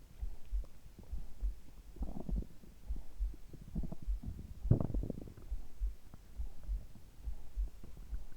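Human heartbeat and stomach sounds picked up from the body: steady low heartbeat thumps with stomach gurgles over them, the loudest gurgle about halfway through.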